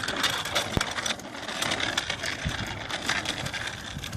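Bicycle rolling along a street: a run of irregular ticks and rattles over a steady hiss of tyre and road noise.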